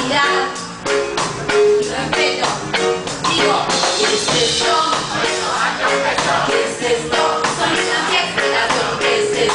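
Live reggae band playing, with a steady drum beat under guitar and a voice singing.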